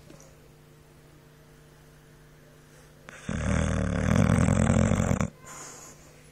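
Boxer dog snoring: one loud snore lasting about two seconds begins about three seconds in, followed by a softer breath.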